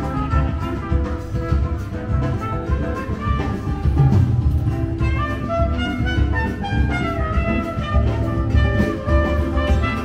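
Music playing at full level: held melody notes that step up and down over a strong bass line and drums.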